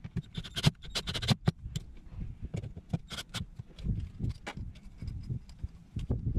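Irregular clicks, taps and light knocks of small screws and a cordless drill being handled, with no motor running.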